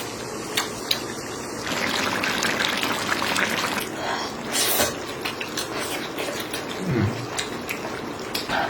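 Clay pot of pork intestine and pork blood stew bubbling, a steady crackling simmer, with a short low vocal sound near the end.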